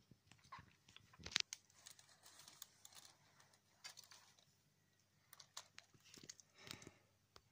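Faint scattered clicks and rustles of plastic Lego Technic parts being handled, with one sharper click about a second and a half in and a brief rustle near the end.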